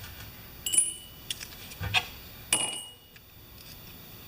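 Two light metallic clinks, one a little under a second in and one about halfway, each ringing briefly. They come from small snow-thrower carburetor parts being handled on the workbench.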